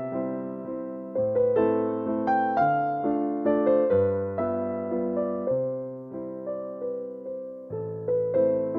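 Background music: a slow piano melody, notes struck a few times a second and left to decay over sustained bass notes.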